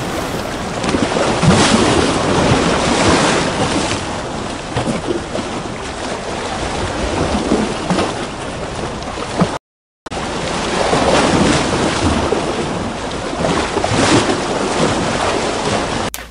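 Recorded ocean waves and surf: a steady rushing wash of water that swells and eases. It cuts out completely for about half a second near the middle, then resumes.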